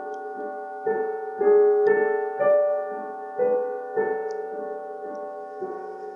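Background music: a piano playing sustained notes struck in steady succession, louder for a couple of seconds in the middle.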